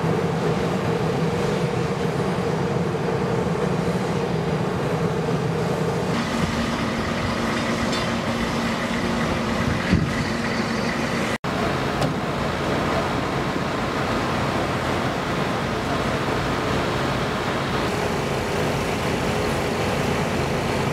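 Vehicle engines and wash-rack machinery running steadily, with a low, even drone. The engine note changes abruptly about six seconds in, and again after a momentary gap about eleven seconds in. A single knock comes about ten seconds in.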